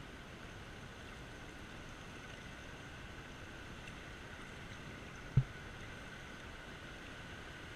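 Fast river water rushing around a whitewater kayak as a steady hiss, with one sharp low thump a little over five seconds in.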